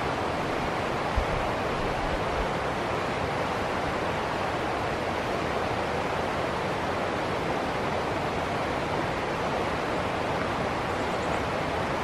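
Rocky stream rushing and splashing over small cascades: a steady rush of moving water, with one brief low bump about a second in.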